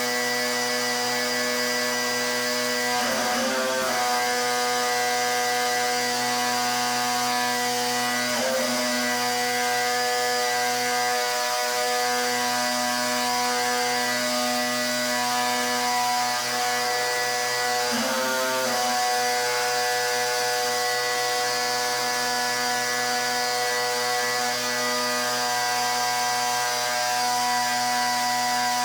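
Pressure washer running steadily: a constant machine hum under the hiss of the water jet, wavering briefly three times.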